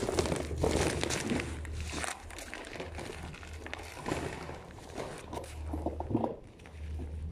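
Crunching steps on salt-strewn, snowy stone paving, then the scrape of a snow shovel, made of many short crackles and scratches. A low rumble comes and goes underneath.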